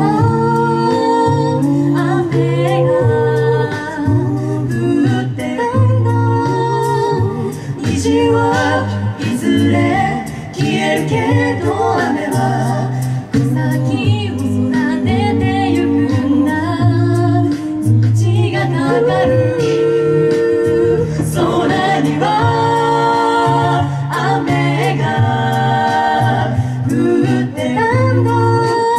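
Five-voice mixed a cappella group singing live: men's and women's voices in close harmony over a sung bass line that steps between held low notes, with vocal percussion clicking out a steady beat.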